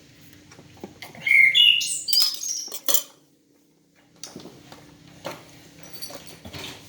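A bird chirping in a quick run of notes that step upward, with light clinks and taps around it. The sound cuts out for about a second in the middle.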